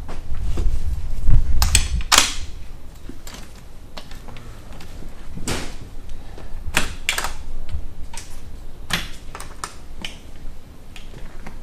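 Irregular sharp clacks and clicks of an aluminium telescopic ladder being handled and set against a clamshell rooftop tent, then of the tent's latches being undone, about a dozen knocks in all, loudest one to two seconds in.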